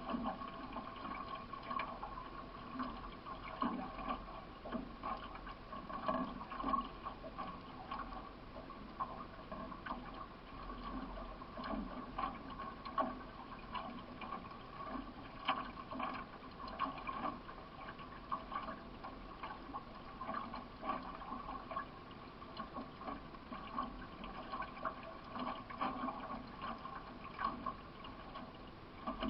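Water splashing and gurgling from a racing canoe being paddled, with repeated paddle strokes about once a second and a steady hum underneath.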